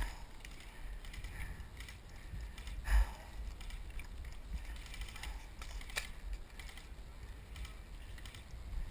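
Scattered clicks and short bursts of airsoft gunfire from electric M4-type rifles, with one sharp crack about six seconds in and a thump about three seconds in, over a low steady rumble.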